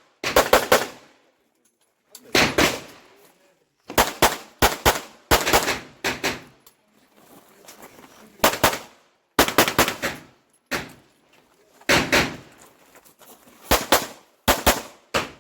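A string of 9mm pistol shots from a Glock 26 subcompact during an IDPA stage, about twenty in all, mostly fired as quick pairs with pauses of a second or two between groups as the shooter moves to new targets.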